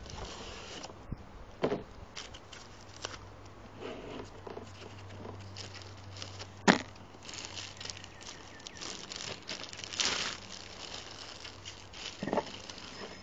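Cardboard box and packaging being handled as a laptop cooler is slid out: rustling and scraping with scattered knocks, the sharpest a single tap about seven seconds in.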